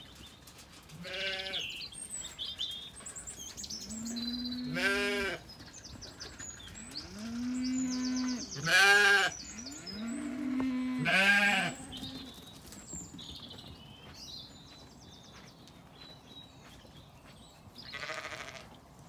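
Zwartbles sheep bleating: about five loud, wavering bleats spread through the stretch, with lower, deeper calls in between. Birds chirp faintly in the background.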